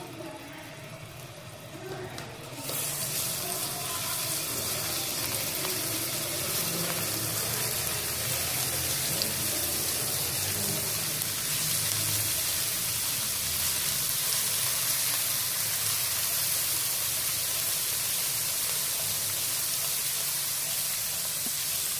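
Ginger-garlic paste frying in hot oil in a wok. A steady sizzling hiss starts suddenly about three seconds in and holds.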